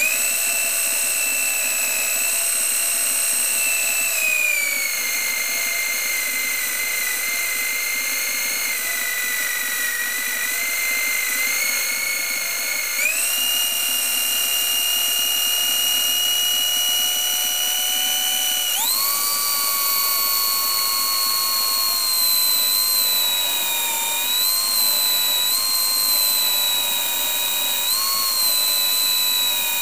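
A 1 hp electric drill driving a homemade belt-driven wood lathe, running with a loud, high whine as the ash blank spins. Its pitch sags a little about four seconds in, steps up twice, about 13 and 19 seconds in, then wavers briefly several times near the end.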